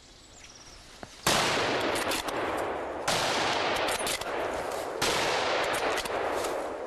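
Three hunting rifle shots about two seconds apart, each followed by a long rolling echo that fades over nearly two seconds.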